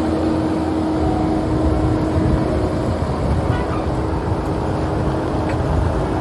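Kubota SVL97-2 compact track loader's diesel engine running steadily, with a constant hum over the engine noise.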